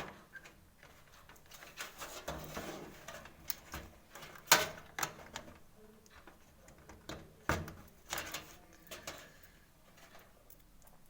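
Scattered clicks and light knocks of small plastic connectors and hands working inside a desktop computer case as front-panel header leads are pushed onto the motherboard pins; the sharpest knock comes about four and a half seconds in, another about seven and a half.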